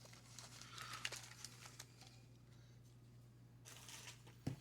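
Faint rustling and light crinkling of cardboard baseball cards being handled and flicked through, over a steady low electrical hum.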